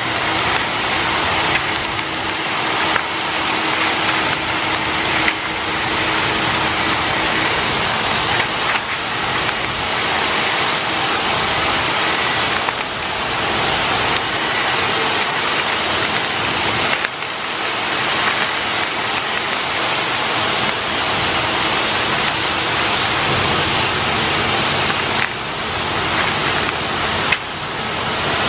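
Steady, loud machinery noise with no clear rhythm, with a few brief sharp crackles from plastic sachets being torn open and handled.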